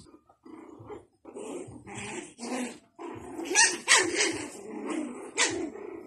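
Five-week-old Japanese Spitz puppies growling and yipping as they play, in a string of short bursts. The loudest sharp yips come about three and a half to four seconds in and again near the end.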